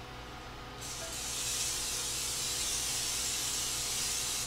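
PAM cooking spray aerosol can spraying a steady hiss into a glass baking dish, greasing it. The spray starts about a second in and runs unbroken for over three seconds.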